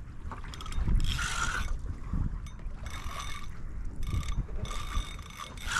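Fishing reel under load from a hooked fish, giving a series of short ratcheting buzzes, the loudest about a second in.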